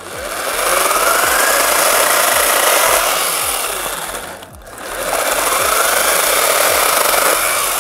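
Ribimex PRBAT20/TRO 2×20 V cordless chainsaw sawing through a branch for firewood. The motor spins up and runs under load, drops away briefly about four and a half seconds in, then speeds up and cuts again before stopping abruptly.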